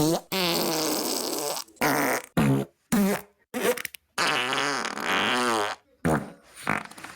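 A string of about eight fart sounds, one after another with short gaps. Most are brief, and two run longer (over a second each) with a buzzing pitch that wavers up and down.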